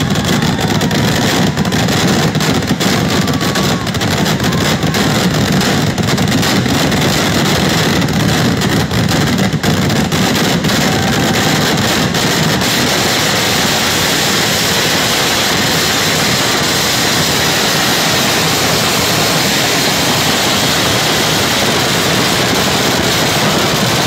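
Vedikettu fireworks barrage: explosions and crackling so rapid that they merge into a continuous loud roar. Separate sharp cracks stand out in the first half before it settles into an even rush.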